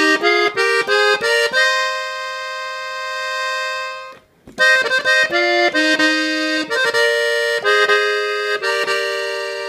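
Gabbanelli three-row button accordion playing a melody on its treble buttons: quick runs of notes, a held chord, a short break about four seconds in, then another run of notes that settles into a held chord near the end.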